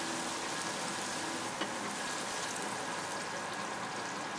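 Breaded pork schnitzels sizzling in hot fat in a frying pan, a steady hiss, with one light click about one and a half seconds in.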